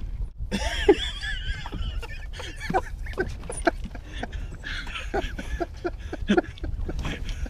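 Men laughing in short, broken bursts over a steady low rumble.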